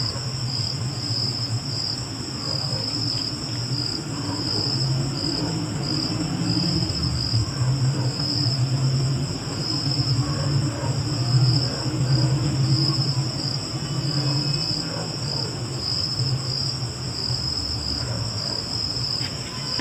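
Crickets chirping steadily, a high pulsing trill that keeps an even rhythm throughout, over a low steady hum.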